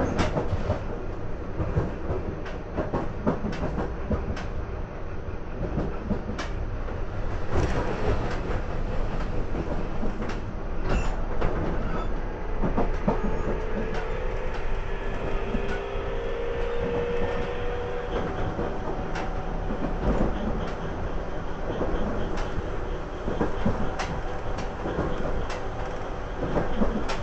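JR Kyushu 811 series electric train running, heard from inside the car: a steady rumble of wheels on the rails with scattered clacks over rail joints. About halfway through, a faint motor tone climbs slightly in pitch for a few seconds.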